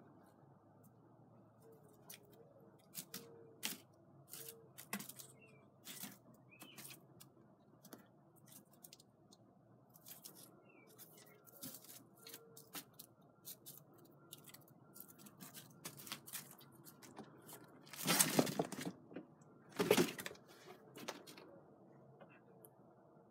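A kitten scrambling about in straw bedding among cardboard boxes and a plastic bag: scattered light crackles, scratches and rustles, with two louder rustling bursts near the end.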